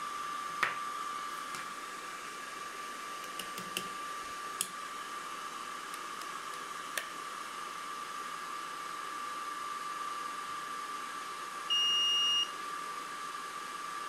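A laser engraver's offline controller gives a single electronic beep of just under a second as it powers up, near the end. The beep sits over a steady high-pitched hum, and a few light clicks come earlier as plugs and buttons are handled.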